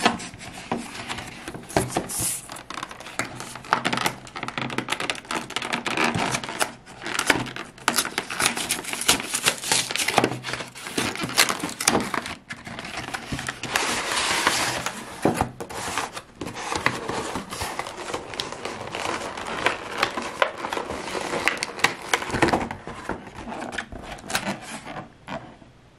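A cardboard trading-card collection box and its clear plastic tray being handled and opened: continuous rustling and crinkling of packaging with many small clicks and snaps, dying down near the end.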